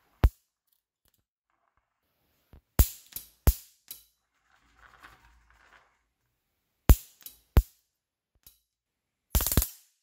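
Several sharp snaps, some single and some in quick pairs. Near the end a high-voltage electric arc starts up between two wire electrodes, crackling and buzzing continuously.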